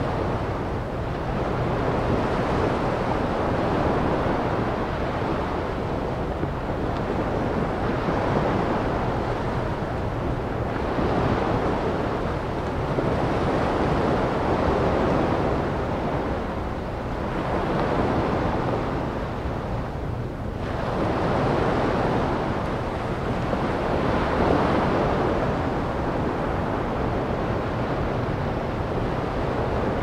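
Ocean waves breaking and washing up a sandy beach, the surf swelling and fading every few seconds over a steady low rumble.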